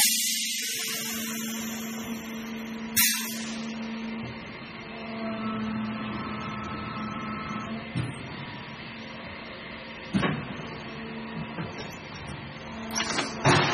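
A single-stage injection blow molding machine running through its cycle, with a steady hum. Sharp hisses of air come at the start and again about three seconds in, a clunk comes about ten seconds in, and more hissing and clunks come near the end.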